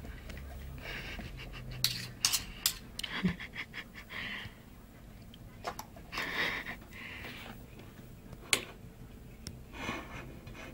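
Metal fork and knife clicking sharply against a plate and teeth several times, with bursts of heavy, breathy panting in between.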